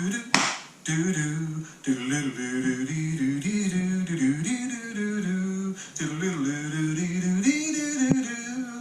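Music: a man singing long, held notes with accompaniment.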